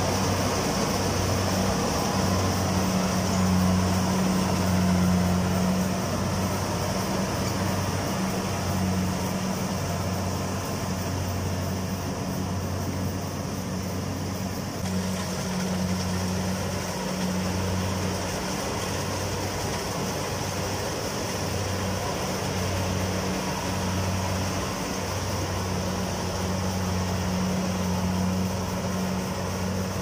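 Kubota rice combine harvester running as it works through the paddy: the diesel engine and threshing machinery give a steady low drone that wavers slightly. It is a little louder for the first few seconds.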